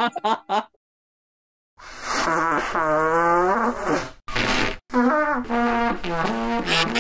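Comic, buzzy trumpet toots: one long note with a wavering pitch, then a run of shorter notes stepping up and down.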